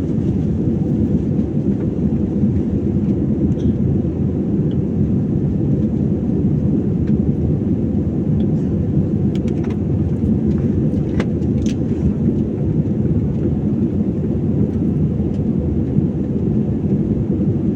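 Steady low roar of jet engines and rushing air heard inside an airliner cabin after take-off, with a few faint clicks near the middle.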